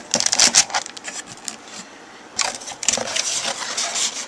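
Unboxing handling noise: a clear plastic packaging bag crinkling and a cardboard box being handled, a run of rustles and light knocks with a short lull about two seconds in.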